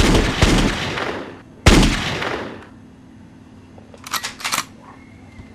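Gunshots: a burst of shots at the start and a single loud shot about a second and a half in, each with a long fading tail, then three quick sharp clicks about four seconds in.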